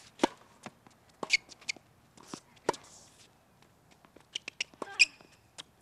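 Tennis balls being hit and bouncing: a run of irregular sharp knocks and smaller clicks, the loudest a few strokes about a second apart, one around five seconds in with a short ringing ping.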